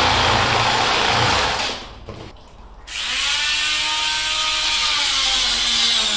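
Handheld power tool cutting through the old sewer riser pipe. It stops about two seconds in, starts again about a second later, and its pitch wavers as it works under load.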